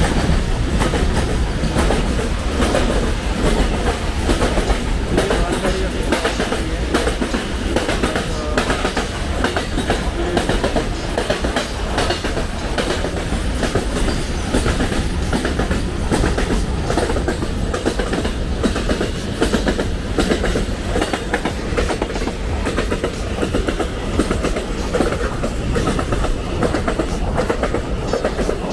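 Container freight train rolling past at close range, a long steady rumble with the wheels clicking over and over on the rails.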